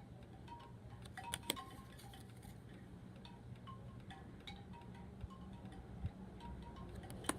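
Faint, scattered tinkling of chimes over a low steady hum, with a few sharp soft clicks about a second and a half in and again near the end.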